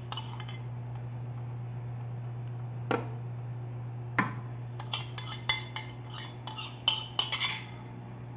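A metal spoon clinks and scrapes against a sauce bowl and a foil baking pan while barbecue sauce is spooned onto chicken. There are a few single clinks, then a quick run of clinks and scrapes in the second half, over a steady low hum.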